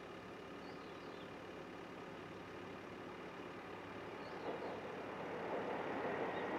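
KiHa 11 diesel railcar approaching: a steady diesel engine hum, joined by growing wheel-on-rail rumble that gets louder over the last couple of seconds.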